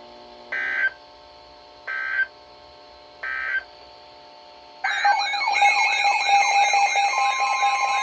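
Emergency Alert System audio: three short buzzing digital data bursts, the end-of-message code. About five seconds in, a loud electronic alert starts: a steady tone with warbling tones over it, and more tones join it, signalling a new warning.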